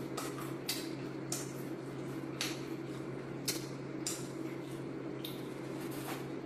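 Close-up chewing of crispy fried chicken: irregular sharp crunches and mouth clicks about once a second, over a steady low hum.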